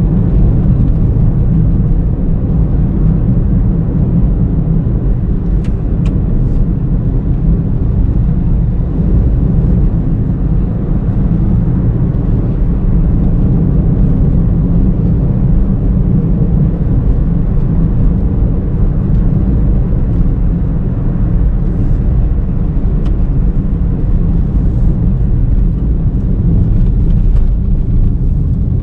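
2019 Honda Brio V CVT driving at night: a steady low rumble of road and engine noise that does not break or change for the whole stretch.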